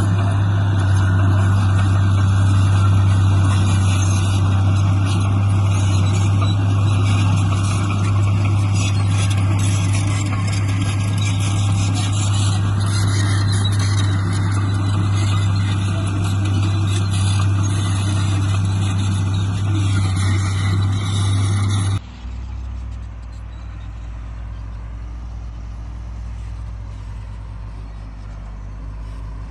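Heavy diesel construction machinery running hard with a steady low drone and mechanical clatter. About three quarters of the way through it cuts off abruptly to a quieter, duller low engine rumble.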